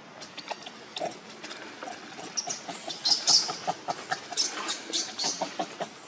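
Macaques scuffling on dry leaf litter: a rapid run of short crackles and rustles mixed with brief high squeaks, loudest about three seconds in.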